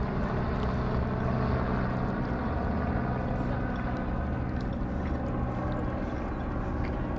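Motorboat engine running steadily, a low, even drone.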